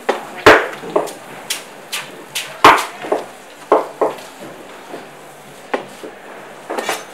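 A large fish-cutting knife chopping through a whole tuna into a wooden chopping block: a series of sharp, irregular chops, the two loudest about half a second and just under three seconds in.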